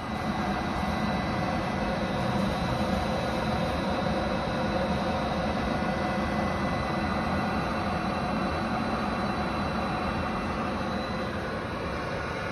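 Screw feeder running steadily as it discharges carbon powder: an even mechanical drone of its drive and turning screw, with faint steady whine tones over it.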